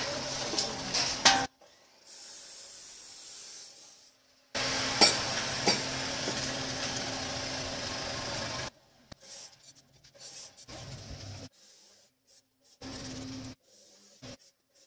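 Stick (arc) welding the joint of a bent steel pipe ring: the arc hisses and crackles steadily for a few seconds, then comes in short separate bursts with gaps as tack welds are struck.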